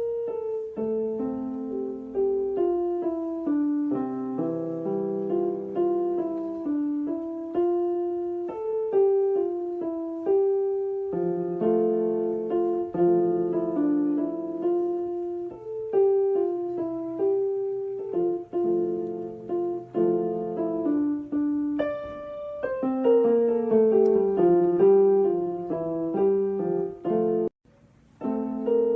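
Background piano music: a gentle melody over sustained chords, with a brief break near the end.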